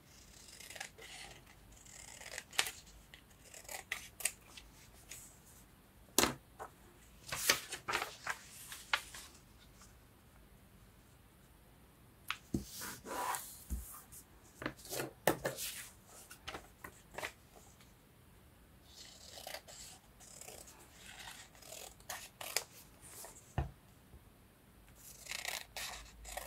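Scissors cutting paper in irregular runs of snips, with paper rustling and handling between cuts and a couple of short pauses.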